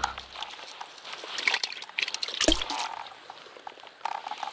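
Handling noise from an angler moving among dry grass and gear: scattered rustling and light clicks, with one dull thump about halfway through.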